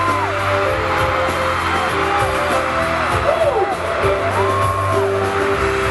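Live K-pop group song in a large arena: several voices singing long, held notes over the band's backing track, with the crowd screaming and cheering throughout.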